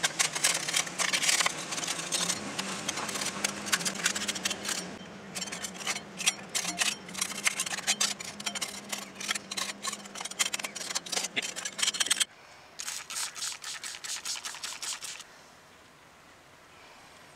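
Hand-held metal scraper scraping barnacles off a boat's metal drive housing: rapid scratching strokes for about twelve seconds, a few more strokes after a short break, then it goes quiet near the end.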